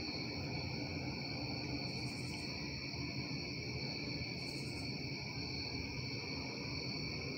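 Night insect chorus: a steady, continuous high-pitched chirring at two pitches, with two short, higher buzzes about two seconds and four and a half seconds in, over a steady low rumble.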